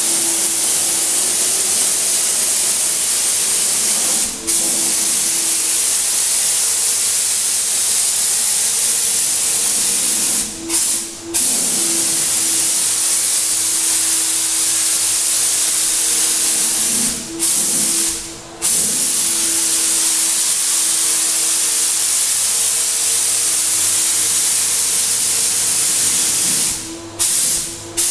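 Graco HVLP 9.5 spray gun hissing steadily as it sprays paint, with a faint steady hum beneath. The hiss breaks off briefly several times, twice in quick succession around the middle and again near the end.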